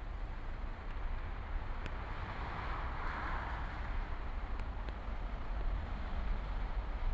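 Steady rushing noise with a low rumble underneath, swelling briefly about three seconds in.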